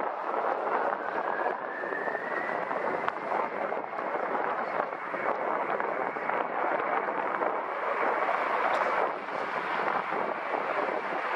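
Jet airliner engines running, with a whine that rises in pitch over the first few seconds and then holds steady, over a wide rushing noise. Wind buffets the microphone.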